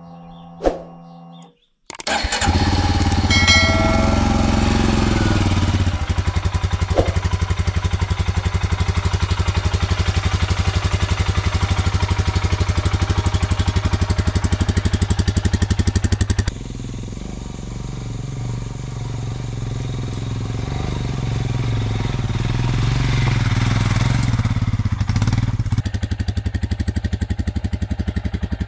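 Royal Enfield Himalayan's 411 cc single-cylinder engine, new and still in its running-in period, started about two seconds in and then idling with an even, steady pulse. Past halfway the sound drops abruptly in level and comes back up near the end.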